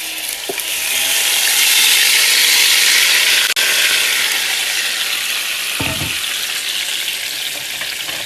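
Marinated chicken chunks sizzling loudly in hot oil in a pan as they start to brown, the hiss strongest a couple of seconds in. A couple of dull knocks from the pan.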